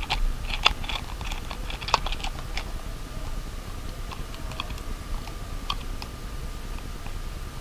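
Hard plastic clicking and ticking as a bolt with an LED kit is turned by hand into a plastic diabolo cup: a quick run of clicks for the first two and a half seconds, then scattered single clicks.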